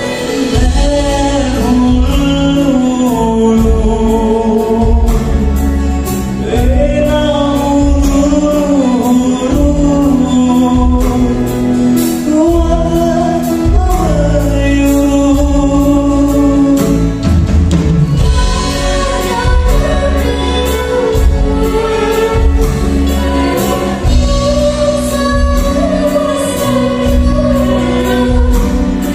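Live school orchestra of strings, guitars, keyboards and drum kit playing a Sinhala song with a steady beat, accompanying singing on a microphone.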